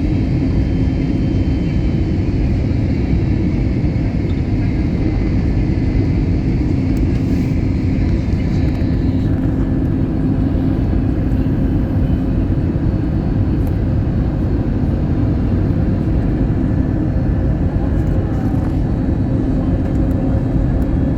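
Steady, loud rumble of an Airbus A320neo heard from inside the cabin, with a constant low hum running through it. About nine seconds in, some of the higher hiss drops away.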